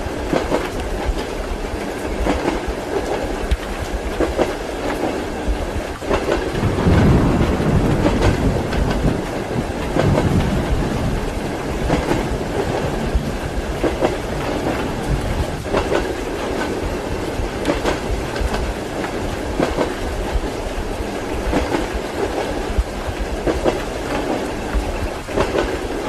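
Moving train heard from inside the carriage: steady clickety-clack of the wheels over rail joints with a low running rumble, under an even hiss of rain. About seven seconds in, a deeper rumble swells for a few seconds, then settles.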